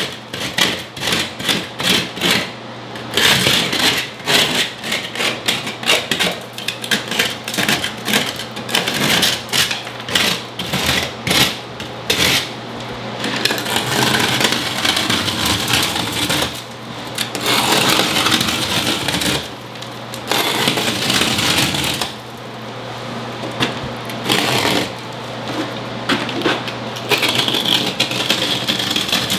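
Knife blade scraping and cutting into old plaster wall in rapid repeated strokes, with stretches of more continuous scratching. The crack is being chased, opened out into a V-groove down toward the wood lath. A faint steady low hum runs underneath.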